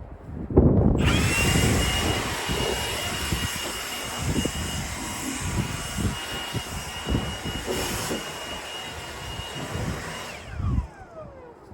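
A high-speed machine running with a steady hiss and a high whine: it spins up about a second in, runs steadily, then cuts off and its whine winds down.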